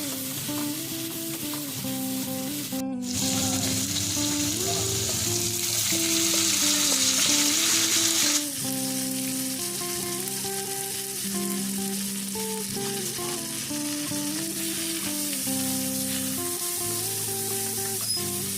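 Vegetables frying and sizzling in a pan of hot oil as they are stirred, louder for about five seconds from around three seconds in, over background music.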